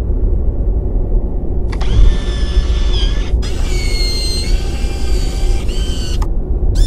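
Robot servo sound effects: electric motor whines, some gliding up or down in pitch, come in a few stretches from about two seconds in, over a deep steady rumble.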